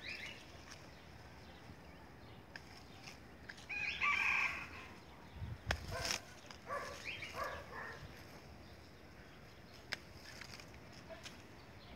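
A rooster crowing about four seconds in, followed by a few shorter calls. Hand pruning shears snip small branches with sharp clicks, once around six seconds in and again near ten seconds.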